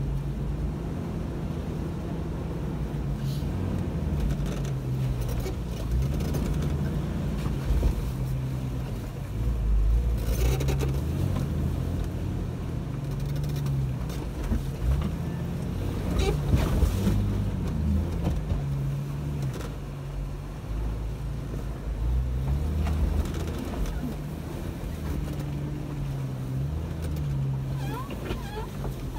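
Jeep Wrangler TJ engine running at low revs while it crawls over rocks, its pitch rising and falling as the throttle is worked. Occasional knocks from the tires and chassis on the rocks, with louder ones about ten and seventeen seconds in.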